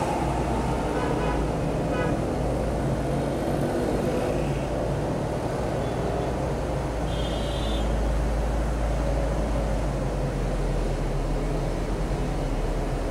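Steady city traffic noise with a constant low rumble. A few faint short pitched sounds come near the start, and a brief high pitched tone sounds about seven seconds in.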